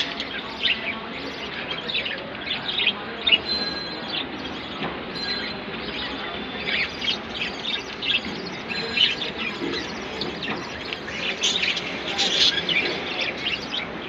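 Budgerigars chirping and chattering in short, quick high chirps, busier near the end.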